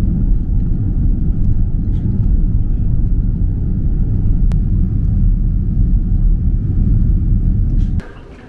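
Steady low rumble of a moving vehicle, cutting off abruptly near the end.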